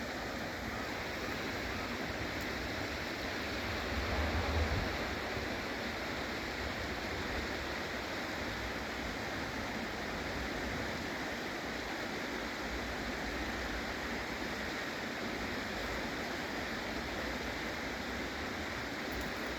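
Steady rush of flowing river water, with a brief low rumble about four seconds in.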